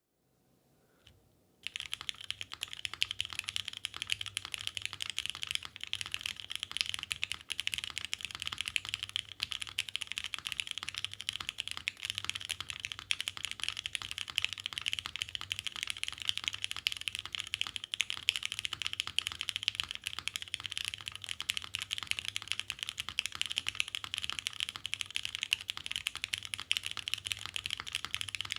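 Custom mechanical keyboard with new-old-stock vintage Cherry MX Black linear switches on a carbon fiber plate, with GMK doubleshot ABS keycaps, being typed on fast and without pause, starting about a second and a half in.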